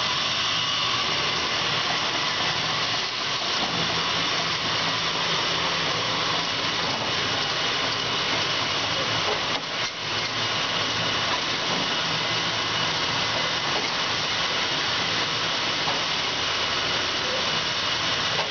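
Amada HA-250 horizontal band saw running: a steady mechanical hum and hiss with a faint high whine.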